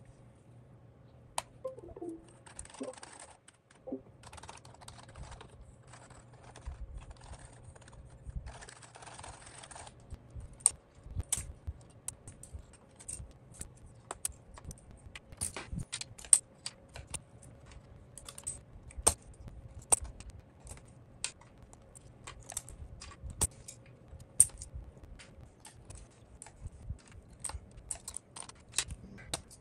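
Soft rustling for the first several seconds, then a run of irregular sharp clicks and clacks from the Happy Hacking Keyboard's Topre keys and plastic parts being worked by hand.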